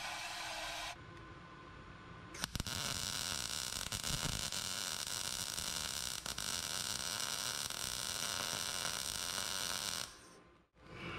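MIG welder arc crackling and hissing steadily as reinforcement welds are laid on a rusty steel exhaust pipe, starting a couple of seconds in and stopping about a second before the end. A brief softer hiss comes first.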